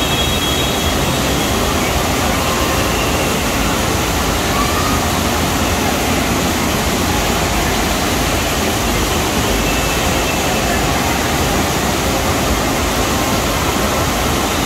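Steady rush of a FlowRider wave machine: a thin, fast sheet of pumped water surging up the padded slope and breaking at the top, even and unbroken throughout.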